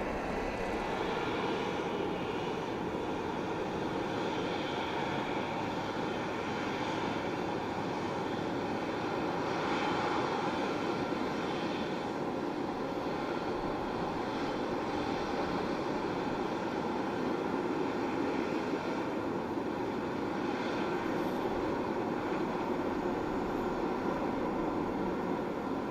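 Jet engines of a Boeing 777-200ER airliner running with a steady, even sound that holds level without a clear rise or fall.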